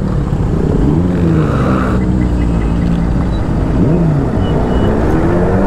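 Superbike engines being revved in short blips, the pitch rising and falling a few times, then climbing steadily near the end.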